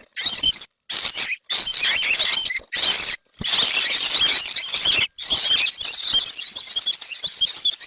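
Baby birds chirping, a dense run of high, rapid calls. The chirping breaks off and starts again abruptly several times.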